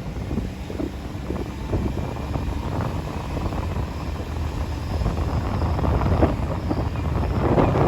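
Rainstorm with wind buffeting the microphone: a deep, irregular rumble that grows louder near the end.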